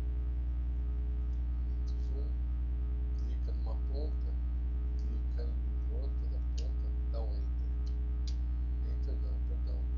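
Steady low electrical mains hum, the loudest thing throughout, with faint scattered short sounds above it.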